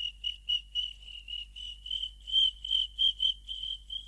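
Crickets chirping: a steady run of short, high-pitched pulses, about four a second, over a faint low hum.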